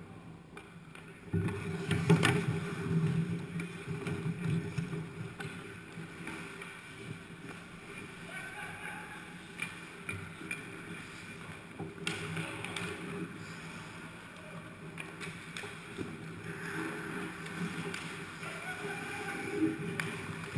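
Ice hockey in play heard from beside the goal: skate blades scraping and carving the ice, with sticks and the puck clacking, over the low hum of the rink. A sharp knock about two seconds in starts the loudest stretch, and another knock comes about halfway through.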